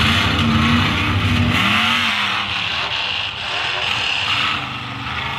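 Modified tuff truck's engine running on the dirt course, revving up and down a few times with its pitch rising and falling.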